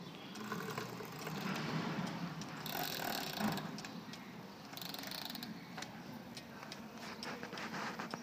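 Carved cuckoo clock's mechanical movement ticking and clicking, with a couple of brief hissing rushes about three and five seconds in.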